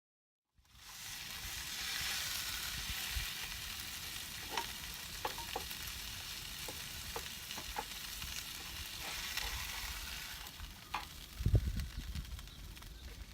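A flounder frying in a pan: a steady sizzle with scattered pops and crackles of spitting fat, starting abruptly about half a second in. A few low thumps come near the end.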